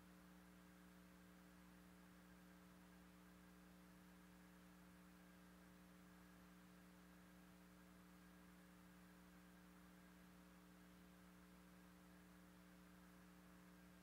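Near silence with a faint, steady electrical hum of several constant tones and a light hiss.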